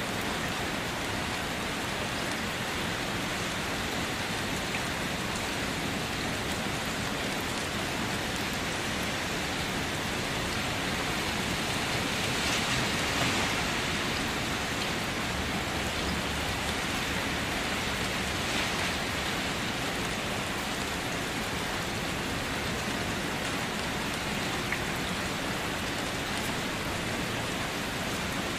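Steady rain falling and splashing on a wet surface, growing a little louder for a couple of seconds near the middle.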